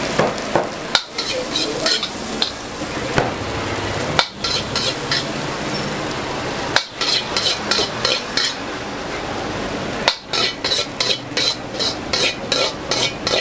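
Fried rice being stir-fried in a hot wok: a steady sizzle, with a metal utensil scraping and clanking against the wok in quick runs of strikes, several a second.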